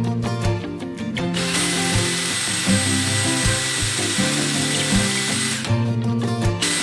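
A power tool runs steadily with a high whine for about four seconds, starting just over a second in and stopping near the end, over background music.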